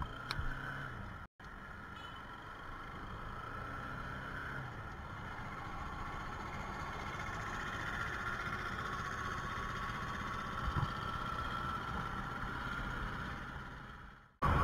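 Motorcycle running along a road: a steady engine hum and road noise on the bike-mounted microphone. It cuts out abruptly for a moment about a second in and again just before the end.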